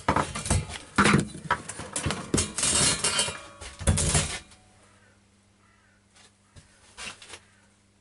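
Hard objects, likely metal parts or tools, clattering and clinking as they are handled: a busy run of sharp knocks for about four seconds, then only a few faint clicks.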